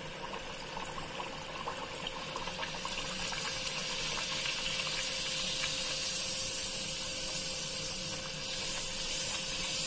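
Masala puri deep-frying in hot oil: a steady sizzling hiss with small crackles that grows slightly louder as it goes, over a faint steady hum.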